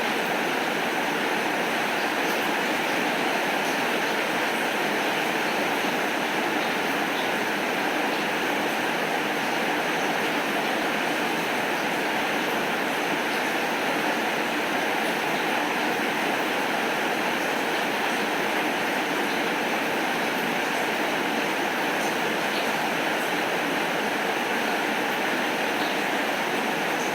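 Heavy rain falling steadily, an even hiss with a few faint drip ticks and no thunder.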